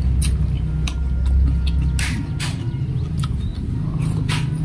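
A person slurping noodles and eating bakso soup, with short slurping and mouth noises a few times and a longer slurp about two seconds in, over a steady low hum that eases about two seconds in.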